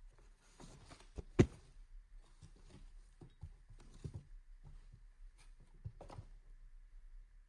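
Propel 701 pedal drive being flipped over inside its cardboard shipping box: cardboard scraping and rustling, with a sharp knock about a second and a half in and a few softer knocks later.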